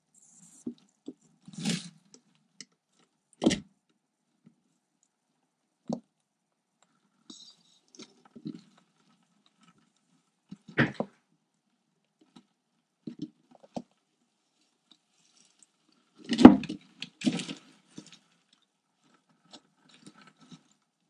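Bark-chip substrate rustling and clicking as a California toad and a garter snake shift and struggle on it: a dozen or so short, separate scrapes and knocks at uneven intervals, the loudest cluster about three-quarters of the way through.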